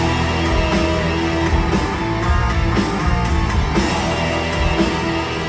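Live heavy metal band playing an instrumental stretch between vocal lines, electric guitars to the fore over bass and drums.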